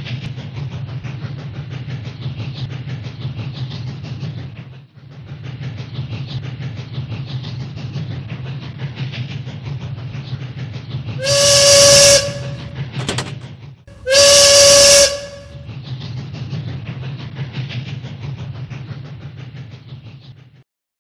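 Battery-powered Hello Kitty toy train running on plastic track: a steady motor hum with the rattle of its wheels and carriages. Two loud train-whistle toots sound about 11 and 14 seconds in, and the running stops shortly before the end.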